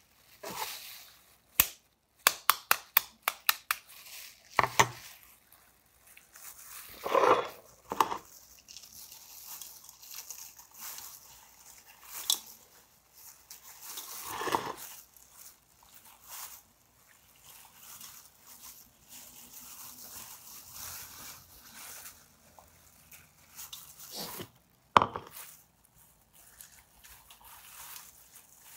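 Crinkling and rustling of plastic gloves and a paper napkin as a hot hard-boiled egg is squeezed and turned to crack its shell, with a quick run of sharp clicks about two seconds in and scattered taps and crackles after.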